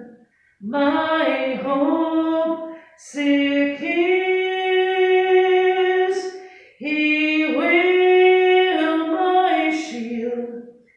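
A woman singing a hymn solo and unaccompanied, in three long held phrases with short breaths between them.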